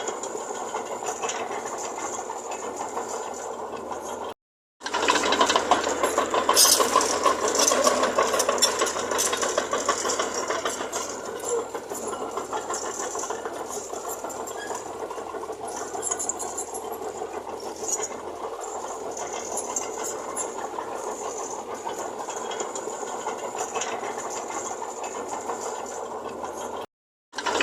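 Diesel earthmoving machinery running with a steady rattling clatter, cut by two brief silences, one about four and a half seconds in and one near the end.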